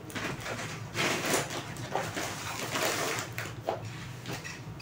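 Irregular rustling and crinkling of plastic grocery packets being handled and pulled out of a shopping bag, with a few small knocks.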